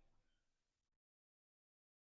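Near silence: very faint room tone that drops to complete digital silence about a second in.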